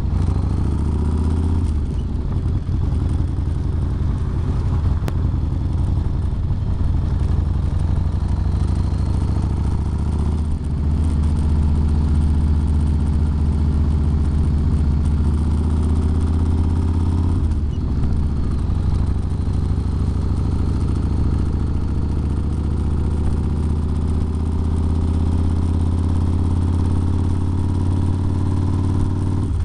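Car engine and road noise heard inside the cabin while driving at highway speed: a steady low drone that dips and shifts briefly about 2, 10 and 18 seconds in.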